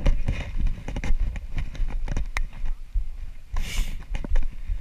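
Wind rumbling on a handheld action camera's microphone, with scattered small knocks from the camera being handled and carried and a brief scrape about three and a half seconds in.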